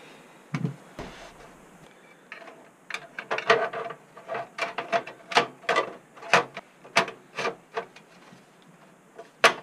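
Metal drive cage holding a floppy drive and hard drive being fitted into the HP Vectra VL400's steel case: a thump about half a second in, then a run of sharp metal clicks and knocks, about two a second, and one last loud click near the end.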